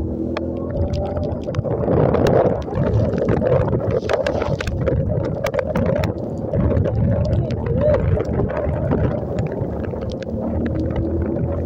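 Motorcycle engine running steadily while its tyres plough through standing floodwater, with water splashing and spraying in rapid irregular slaps. The splashing is loudest through the middle and the engine hum is clearest near the start and end.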